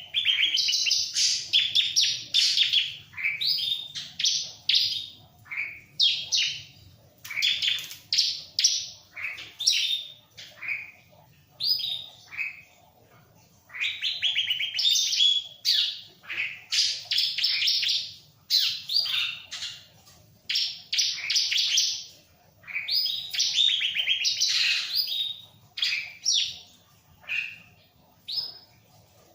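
Bar-winged prinia (ciblek) singing vigorously: quick bursts of high, sharp chirping phrases, one after another with short pauses between.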